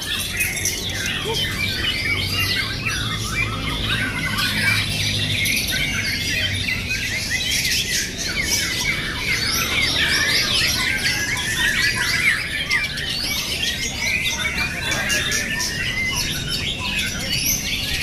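Many caged songbirds singing at once: a dense, unbroken chorus of overlapping chirps, trills and whistles.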